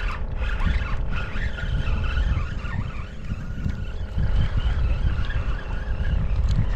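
Wind buffeting the microphone with an irregular low rumble, over a steady hum and a thin, wavering high whine.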